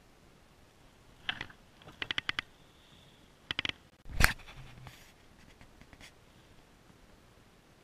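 Handling noises of gear in a small boat: short clusters of sharp clicks and taps, a quick run of about five in half a second among them, then one heavy knock about four seconds in, the loudest sound, followed by a few faint ticks.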